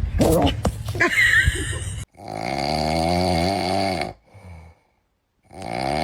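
Snoring: two long, low snores, the second starting after a short silent gap. Before them, in the first two seconds, comes a brief jumble of knocks and thumps.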